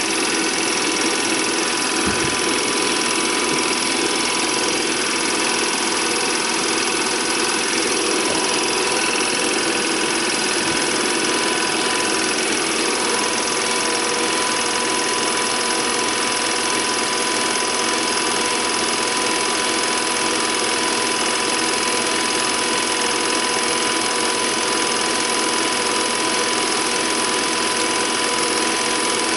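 Home-movie film projector running steadily: an even mechanical whirr and clatter with a constant high tone.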